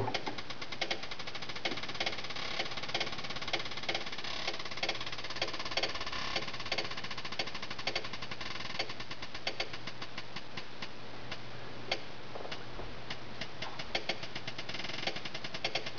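Beat707 drum sequencer playing a drum pattern: a fast run of short, thin hits whose tempo speeds up and slows down as the keyboard's mod wheel is turned.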